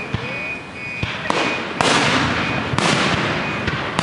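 Aerial fireworks shells bursting: three loud bangs roughly a second apart, each fading out with a rolling echo, and another bang right at the end.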